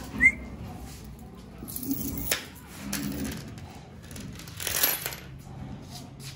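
Steel chain dog leash clinking and jingling as it is handled, with a few sharp metallic clicks, one at about two seconds in. A short rising squeak about a quarter second in is the loudest sound.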